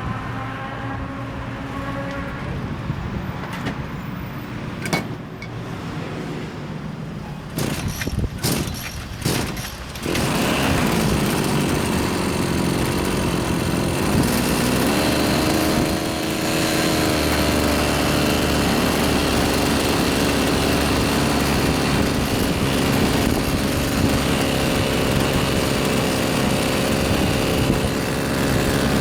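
Small engine of a gas (butane-cartridge) brush cutter. A few sharp clicks and knocks about eight seconds in, then from about ten seconds in it runs loud and steady, the pitch rising and settling, with a brief dip about sixteen seconds in.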